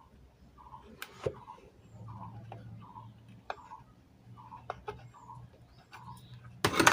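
Scattered clicks and knocks of a screwdriver and metal parts as a replacement amplifier IC is screwed down tight, with a louder rattle near the end. Faint bird chirps repeat throughout, over a low hum.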